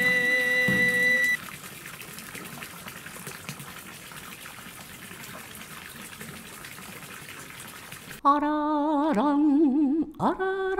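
Water pouring steadily from a garden spout into a stone basin, an even splashing hiss. A held shinobue (bamboo flute) note breaks off a little over a second in, and about eight seconds in a woman starts singing unaccompanied, her voice wavering.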